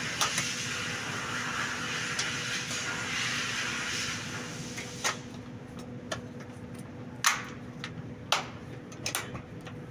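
Plastic air filter housing on a Mercedes-Benz Actros being handled from underneath: an even rushing noise for about the first five seconds, then a series of sharp knocks and clicks at uneven spacing as the housing and its lock are worked by hand. A faint steady hum runs underneath.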